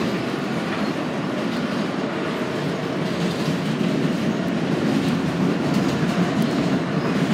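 R160B subway train heard from inside the car, a steady running noise of wheels on rails, as it comes into a station on elevated track. The noise grows slightly louder in the second half.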